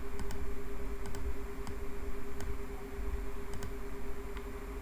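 A few sharp computer-mouse clicks, spaced irregularly, over a steady electrical hum and low rumble.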